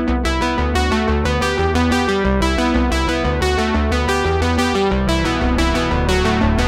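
Background music: electric piano or synthesizer keyboard playing repeated notes over a steady bass line.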